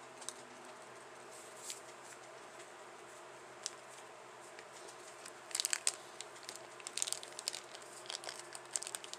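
Thin plastic tray of a DIY candy kit crinkling and clicking under fingers as pieces are worked in it: a few separate clicks at first, then bursts of crackling through the second half.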